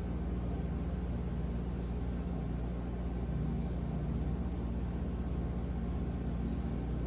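Steady low background hum and rumble with a light hiss, unchanging throughout.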